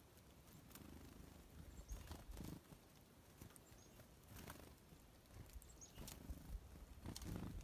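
Near silence: faint rustles and soft knocks, with a few short, faint high bird chips scattered through it.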